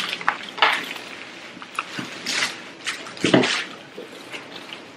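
Aluminium foil and plastic bags crinkling and rustling as they are handled, in short irregular bursts.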